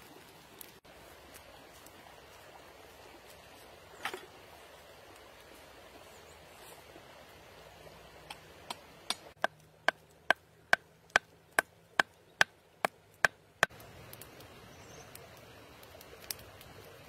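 A large knife chopping into a wooden stick, about a dozen sharp, evenly spaced strikes, a little over two a second, that grow louder and then stop. The stick is being cut into a stake for a grill rack.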